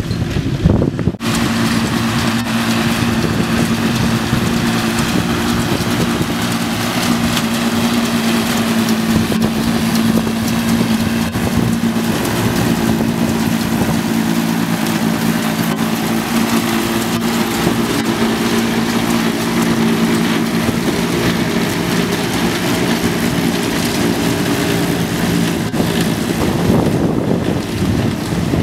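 Tractor engines working steadily under load, driving a trailed Mengele forage harvester as it picks up and chops grass for silage and blows it into a trailer. The sound is a steady engine drone with a broad rushing noise over it.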